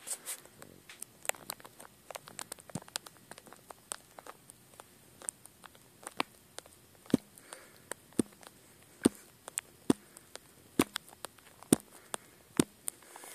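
Irregular sharp clicks and pops, a few a second, some much louder than others.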